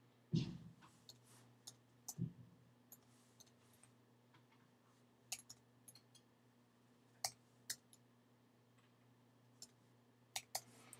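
Sparse, irregular computer keyboard keystrokes as an IP address is typed in, single clicks and short clusters over a faint steady hum. Two soft low thumps come near the start, about two seconds apart.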